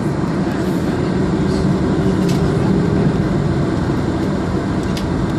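Boeing 747-400 engines at low taxi power, heard from inside the passenger cabin as a steady drone with a constant low hum.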